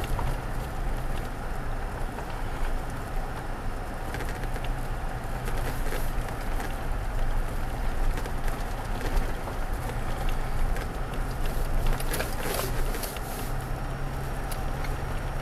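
Pickup truck driving slowly on a dirt and gravel road, heard from inside the cab. There is a steady low engine and drivetrain hum under tyre noise, scattered clicks of gravel, and a brief cluster of louder clicks about twelve seconds in.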